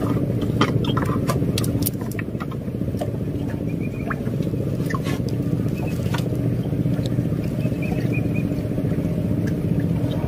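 A small boat engine running steadily, a low rumble, with scattered sharp clicks and ticks over it.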